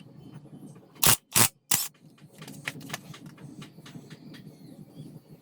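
Light clicks and scrapes of tools and engine parts being handled, with three loud sharp knocks close together about a second in.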